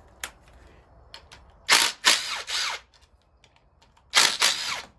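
Cordless power driver spinning out the brake caliper bolts on a motorcycle fork leg: two bursts about a second long, around two seconds in and again near the end, the motor's pitch sweeping as it runs.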